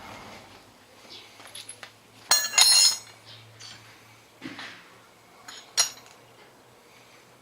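Metal parts clinking and ringing: a loud ringing clatter about two and a half seconds in, a sharper clink near six seconds, and a few fainter taps between.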